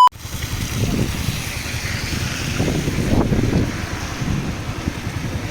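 A short beep right at the start, then loud wind buffeting the microphone with an uneven low rumble.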